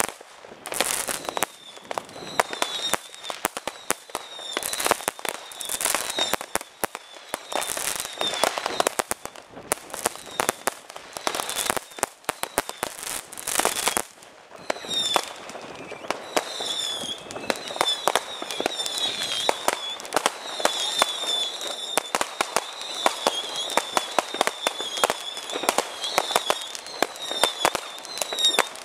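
Fireworks going off in a rapid, dense run of bangs and crackles, with a short lull about halfway through. Warbling whistles ride over the bangs through much of the second half.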